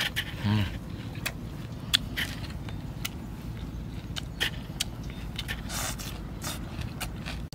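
Fingers pulling apart a charcoal-roasted whole fish, with scattered small clicks, crackles and rustles from the charred skin and flesh, along with some chewing, over a steady low rumble.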